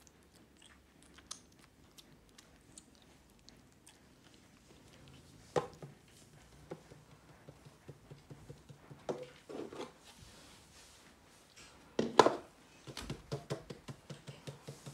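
Faint small wet clicks of a baby monkey sucking juice from a feeding syringe, then irregular rustles and knocks as the monkey clambers over a blanket on a bed, the loudest bump about twelve seconds in.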